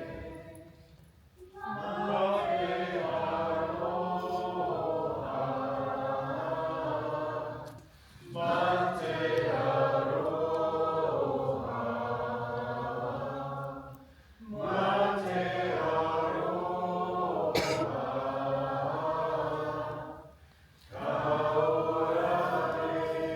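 A group of voices singing a waiata in unison: the song that follows a whaikōrero at a pōwhiri in support of the speaker. It comes in long phrases of about six seconds, with a short pause for breath between them.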